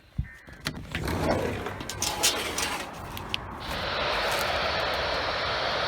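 Weather radio receiver tuned to a channel with no station, giving steady static hiss; a few clicks and handling noises come first, and the static settles in a little past halfway.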